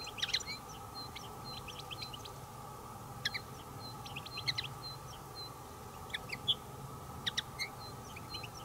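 European goldfinches calling: short, high twittering chirps in scattered clusters every second or two.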